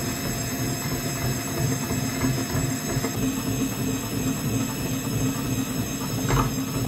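Electric meat grinder running steadily, its motor humming as the auger forces crumbled coloured powder out through the perforated cutting plate, with a few faint crunching clicks.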